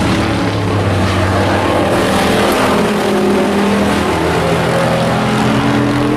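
Engines of several hobby-class race pickup trucks running hard around an oval track, their overlapping engine notes wavering up and down in pitch as the trucks race.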